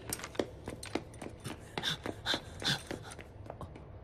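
A wounded man's strained, pained breathing, with three short gasps about two seconds in, over scattered light clicks and tinkling.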